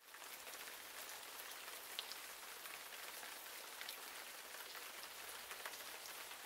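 Rain pattering: a steady faint hiss with scattered small drop ticks.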